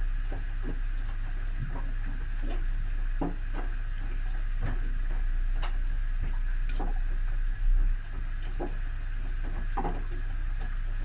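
Whirlpool washing machine in its main wash: water and laundry sloshing in the turning drum over a steady motor hum, with irregular soft knocks and splashes.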